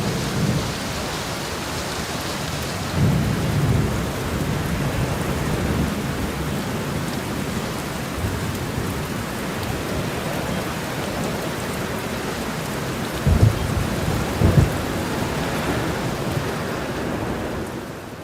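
Steady heavy rain with rolling thunder: a low rumble a few seconds in, and two short, sharp thunder claps about two-thirds of the way through. The rain fades out near the end.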